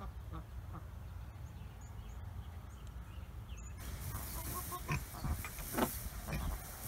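Small birds chirping in the background over a low steady rumble. About four seconds in, a brighter rustle takes over with a few short grunts as Juliana mini pigs root in the straw of their pig house.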